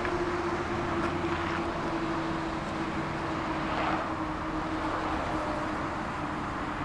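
Tram running, heard from inside the passenger car: a steady rumble and rolling noise, with a motor whine that slowly drops a little in pitch.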